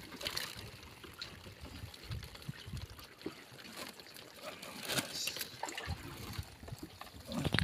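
Water trickling and dripping as a lobster is handled in a wet plastic-mesh cage, with a few soft knocks and rattles of the mesh.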